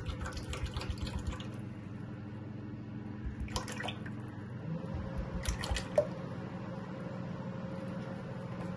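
Cooking oil being poured in a stream from a bottle into an empty deep fryer, splashing onto the wire basket and metal pan. The pour comes in uneven gushes, with a sharp knock about six seconds in. A steady low hum sits underneath.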